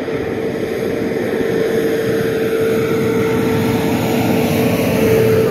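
A motor's steady drone with a constant hum, growing gradually louder over the first few seconds and then holding.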